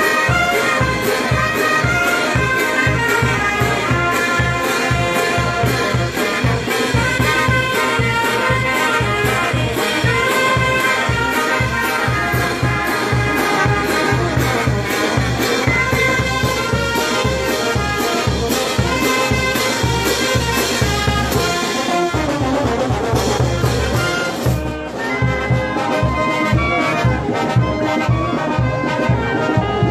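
A Peruvian banda (a marching brass band of saxophones, brass horns and sousaphone, with bass drum, snare and cymbals) plays a lively tune over a steady drum beat. About 25 seconds in, the sound briefly dips and then comes back with a duller top end.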